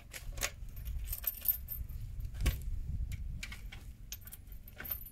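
A key on its ring jangling and clicking in the lock of a mini excavator's engine cover as it is unlocked and the cover is opened, with many small metallic clicks and knocks.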